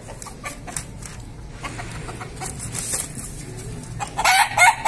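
Rooster clucking: faint scattered clicks, then a loud run of short, quick clucks about four seconds in.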